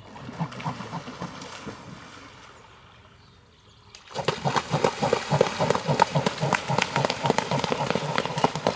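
Swans running and beating their wings across the water surface. From about four seconds in, their feet and wings make a rapid, dense run of splashing slaps. In the first two seconds there are a few short calls from the birds.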